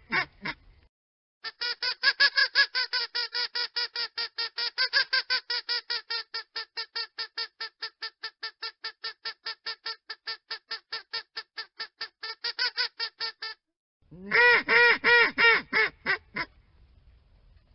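Duck quacking in a long rapid run of about five quacks a second, fading a little as it goes. After a brief pause, a short burst of louder, lower quacks follows near the end.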